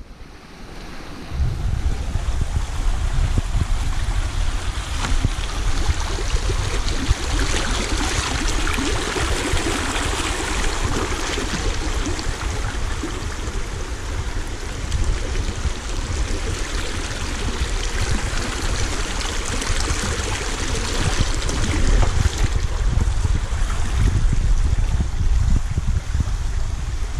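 Shallow rocky stream flowing over stones, an even rushing sound, over a heavy low rumble of wind on the moving camera's microphone. The sound comes up over the first second or two.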